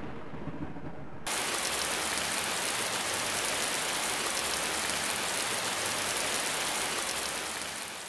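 Thunderstorm sound effect: a low thunder rumble dies away, then about a second in a steady hiss of rain starts abruptly and fades out near the end.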